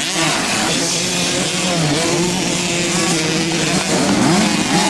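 Several small two-stroke youth motocross bikes revving hard, their engine notes rising and falling and overlapping as the riders accelerate and shift.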